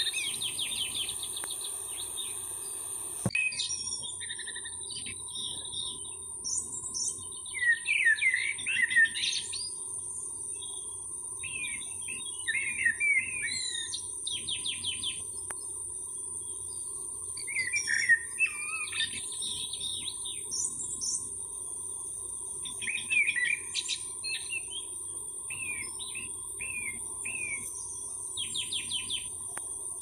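Small birds chirping and trilling in short phrases every second or two. Behind them runs a steady, high-pitched insect drone.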